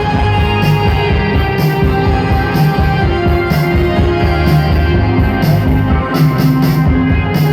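Live band playing an instrumental passage with a steady drum beat, pulsing bass and held notes, with no vocals.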